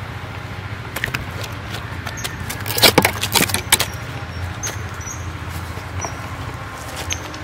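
A hooked fish dangling on the line and flapping against dry leaves and a woven plastic bag: scattered rustling slaps, with a loud flurry of them about three seconds in.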